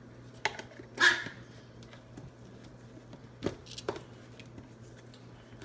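A pet dog gives one short, sharp bark about a second in, then a few soft knocks follow a couple of seconds later.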